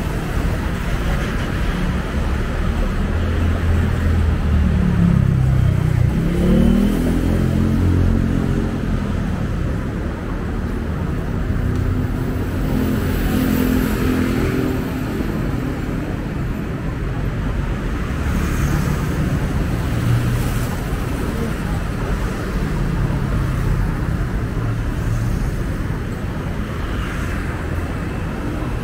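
Road traffic on a city street: a steady low rumble of passing vehicles, with one engine rising in pitch about five to seven seconds in as it speeds up, and another passing engine about halfway through.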